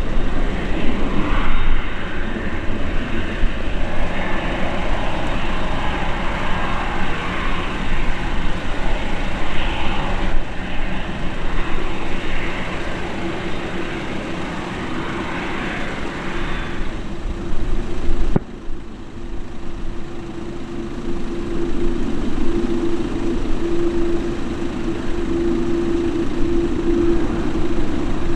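The four GEnx-2B turbofans of a Boeing 747-8F freighter running at low taxi thrust: a steady jet rumble and hiss with a steady hum that grows stronger in the second half. The sound changes abruptly about two-thirds of the way through.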